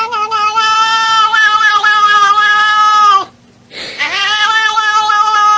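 Domestic cat yowling in long, drawn-out wails, each held for several seconds on a slightly wavering pitch. One yowl breaks off about three seconds in, and a second starts about a second later.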